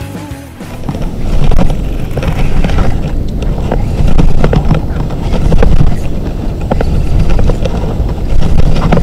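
Wind buffeting and sleeve fabric rubbing on a body-worn action camera's microphone while an angler works a fishing rod on an open boat: a loud, low, gusting noise with many small scrapes and knocks.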